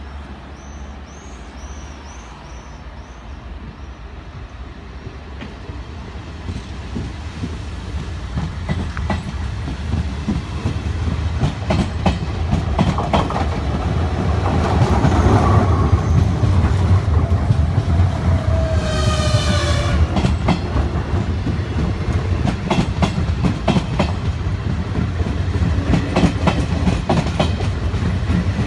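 Trenitalia regional train of Media Distanza coaches, worked by an E.464 electric locomotive, rolling past at close range. It grows steadily louder as it nears, with fast clickety-clack of wheels over rail joints. A brief high tone sounds about two-thirds of the way through.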